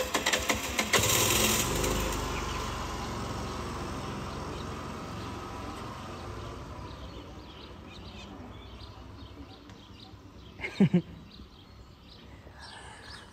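A motor scooter's small petrol engine pulling away, loudest at first and fading steadily as it rides off.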